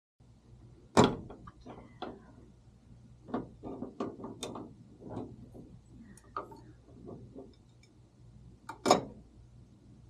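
Scattered metal clicks and clanks of a wrench working a water hose fitting in a water source heat pump's cabinet, with two louder knocks, about a second in and near the end. A faint steady low hum runs underneath.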